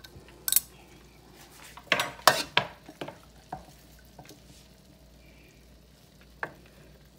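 Metal serving fork clinking and knocking against a stainless steel pot and roasting pan as carrots are dished out, a quick cluster of clinks about two seconds in, then a few scattered knocks and one more near the end.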